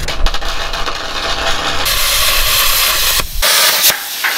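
Handheld plasma torch cutting a notch in steel plate: a loud, steady hiss that starts about two seconds in and breaks off briefly a couple of times.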